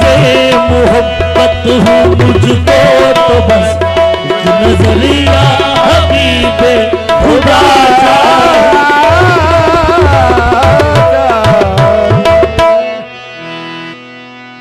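Qawwali music: tabla drumming under a held harmonium note, with a wavering wordless vocal line in the middle. The music cuts off abruptly near the end, leaving a sustained chord that fades.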